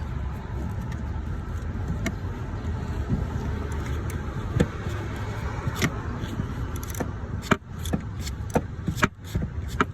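Metal hand tools (socket and wrench) clinking and knocking against engine parts while a bolt is worked, the clicks irregular and coming thicker in the last few seconds. A steady low rumble lies under them.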